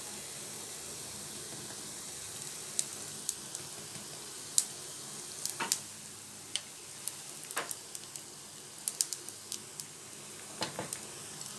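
Rava paniyaram frying in ghee in a paniyaram pan: a steady sizzling hiss with scattered sharp clicks, more of them in the second half.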